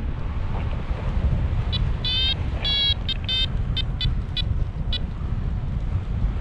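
Heavy wind buffeting the microphone as the paraglider flies. From about two seconds in, a run of short high electronic beeps, two longer ones then quicker short pips, typical of a flight variometer signalling lift.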